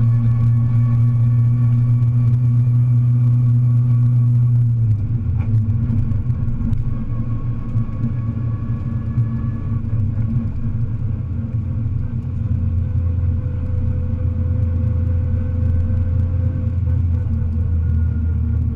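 Rally car engine heard from inside the cockpit under steady load. About five seconds in the engine note drops sharply, then it runs at lower revs with the pitch slowly climbing.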